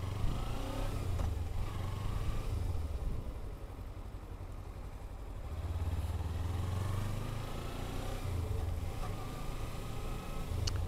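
Motorcycle engine running at low speed while threading past stopped traffic, easing off about three seconds in and opening up again around six seconds.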